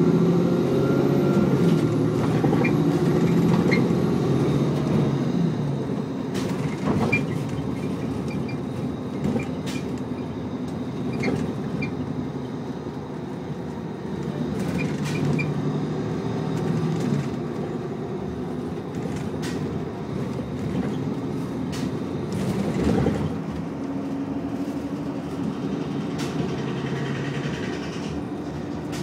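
A 2017 Nova Bus LFS city bus's Cummins L9 diesel engine running while the bus drives, heard from inside the passenger cabin: a steady engine hum that shifts in pitch now and then, with scattered knocks and rattles from the bus body.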